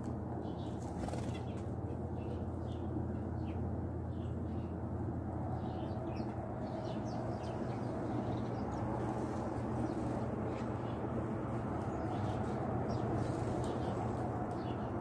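Steady low hum and rumble, with faint, short high ticks scattered through it.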